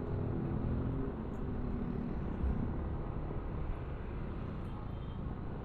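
Yamaha NMAX scooter riding through traffic: a steady low rumble of engine, road and wind, with a faint engine note in the first couple of seconds.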